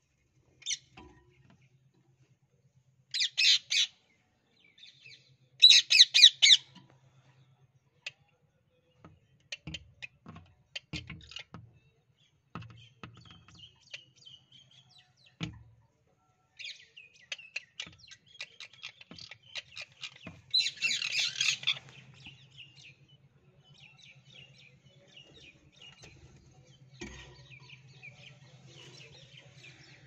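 A rose-ringed parakeet gives loud, harsh screeching calls in short bursts, about three seconds in, around six seconds and again around twenty-one seconds. Softer chattering and clicking fill the time between.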